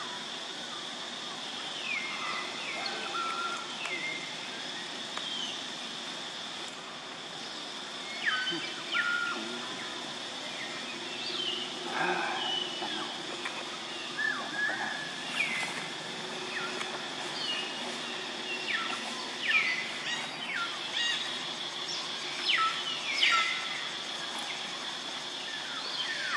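Outdoor natural ambience: a steady high-pitched drone runs throughout, with many short, falling chirps and calls over it, more frequent and louder in the second half.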